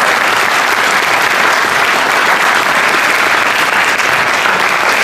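An audience applauding steadily, a dense wash of many hands clapping.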